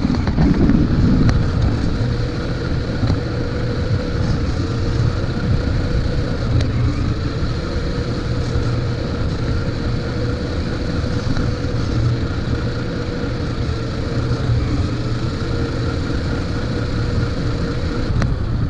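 Toy RC monster truck driving over pavement, heard from a camera mounted on it: a steady whine from its motor and gears over a loud rumble of the tyres and chassis on the concrete.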